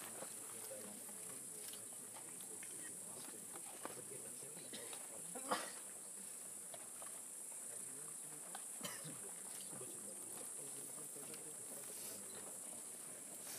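A steady high-pitched insect chorus, with small scattered rustles and one brief sharper noise about five and a half seconds in.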